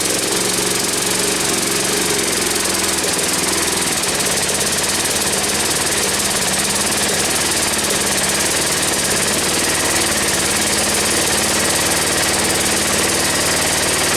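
Newly fitted replacement engine of a John Deere ride-on mower running steadily at an even level on one of its first runs.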